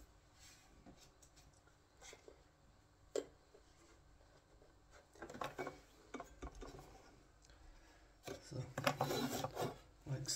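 Hand rubbing and scraping on a freshly set wall tile and its adhesive, with a few light clicks, a sharp tap about three seconds in, and louder scraping in the last two seconds.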